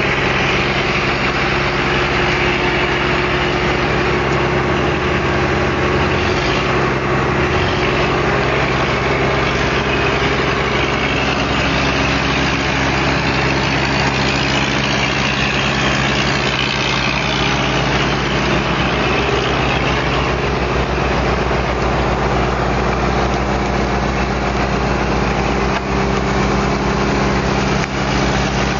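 Engine of a rotary snowplow (snow blower) running steadily at an even speed, a constant low hum with no revving.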